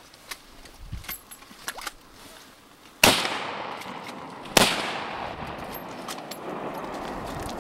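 Two gunshots about a second and a half apart, each with a long echo rolling away across the open river. Faint clicks come before them.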